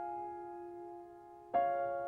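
Slow piano music: a held chord fades away, and a new chord is struck about one and a half seconds in and rings on.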